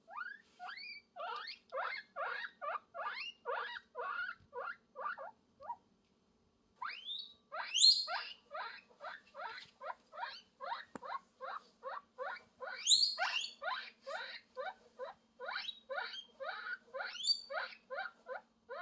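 Guinea pig squeaking in a rapid run of short rising squeaks, about three or four a second, with a brief pause near six seconds in. Two much louder, higher-pitched rising squeals break through about eight and thirteen seconds in.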